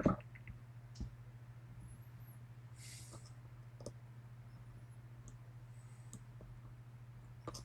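A few scattered small metallic clicks and a short scrape about three seconds in, from a lock pick and tension wrench being worked in the keyway of a Medeco M3 cam lock, with a steady low hum underneath.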